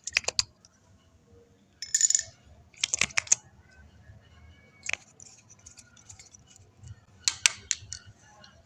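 Makeup containers and tools handled: short clusters of sharp clicks and taps, about five groups, with a brief scraping rustle about two seconds in.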